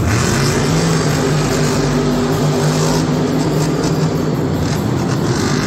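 Grave Digger monster truck's supercharged V8 engine running loud and steady as it drives across the dirt arena floor.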